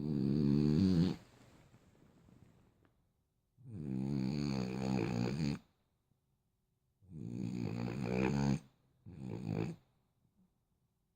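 French bulldog snoring in its sleep: three long snores about three and a half seconds apart, the last followed closely by a short one, with quiet breathing between.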